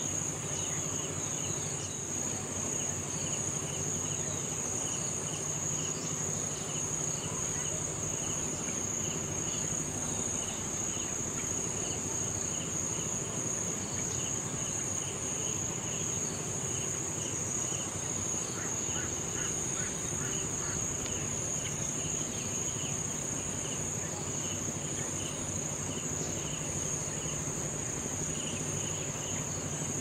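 Continuous high-pitched insect drone, with a lower series of short, rapidly repeated chirps coming and going over it.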